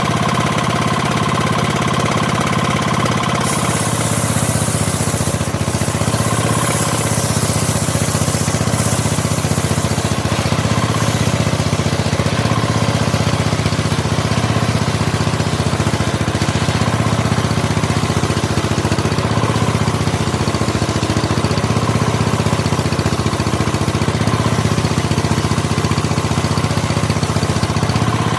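Engine-driven sawmill machinery running with a steady low drone. A high hiss joins from about four to eleven seconds in.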